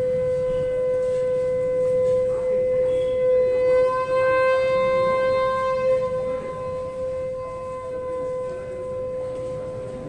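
A single long horn-like tone held at one steady pitch without a break, growing louder toward the middle and easing off near the end.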